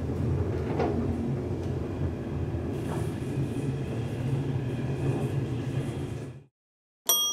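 Schindler holeless hydraulic elevator car in motion, a steady low hum and rumble that cuts off suddenly. A bright ding starts right at the end.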